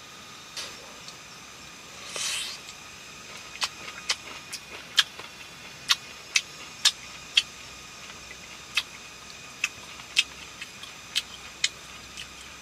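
Sharp, irregular clicks and taps, about twenty of them over some nine seconds, after a brief rustle about two seconds in, over a faint steady background.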